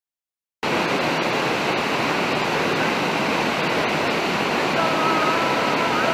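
Steady rush of a small waterfall pouring over rocks into a creek pool. It starts abruptly about half a second in, after silence.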